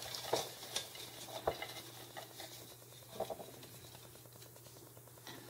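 A hand rummaging inside a small pail: scattered light rustles and clicks, loudest in the first second and a half and again about three seconds in.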